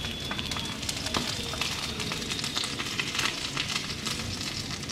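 Hot oil sizzling in a frying pan with pieces of fish frying in a shallow layer of oil: a steady hiss with frequent small crackles and spits.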